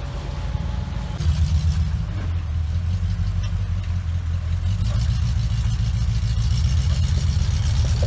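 Engine of a flat-fender Jeep rock crawler running at low revs under load as it crawls up a rock ledge, a steady low engine note that gets louder about a second in.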